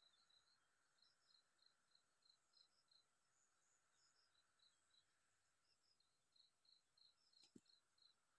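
Near silence: faint outdoor ambience with short, high chirps repeating about three times a second. One soft tap comes near the end.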